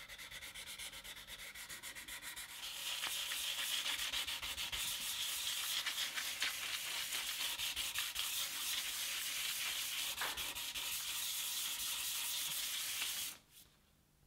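Hand sanding of the mahogany back of a Gibson Les Paul headstock, taking down two inserted wooden splints, with abrasive paper rubbed in fast back-and-forth strokes. The sanding gets louder about three seconds in and stops suddenly just before the end.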